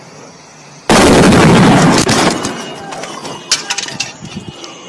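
Covergirl hairspray aerosol can exploding: a sudden loud blast about a second in, a rushing roar that lasts over a second and then fades, followed by scattered crackles.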